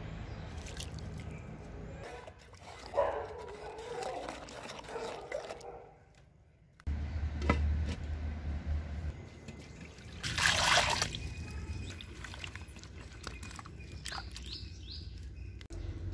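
Water trickling and moving in a clay cooking pot of rice, broken by a single click and then a short scraping rush about two-thirds of the way through.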